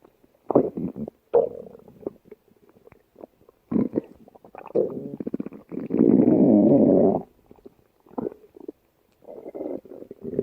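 A woman's stomach growling: a string of short, irregular gurgles, with one long rumble lasting more than a second about six seconds in.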